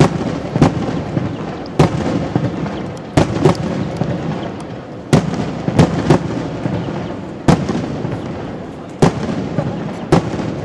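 Aerial fireworks shells bursting overhead: about a dozen sharp bangs at uneven intervals, some in quick pairs, over a steady background rumble.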